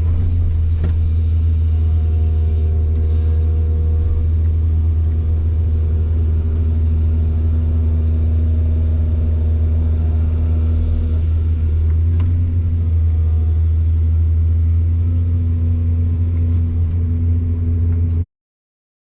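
Excavator's diesel engine running steadily with a deep, even hum. The sound cuts off suddenly near the end.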